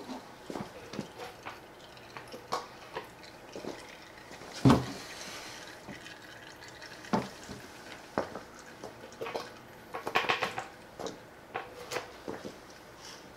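Engine oil dripping and trickling out of an open oil-pan drain hole into a drain pan: irregular drips and small splashes, one louder about a third of the way in and a quick cluster of them about three quarters through. It is fresh oil poured in at the top being flushed through the engine and draining out.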